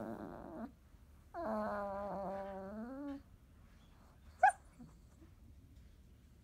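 Drowsy 30-day-old Labrador puppy whining and groaning in long, drawn-out moans: one trails off just after the start, and a second runs from about a second and a half to three seconds in, rising slightly at its end. About four and a half seconds in there is one short, sharp, high squeak, the loudest sound.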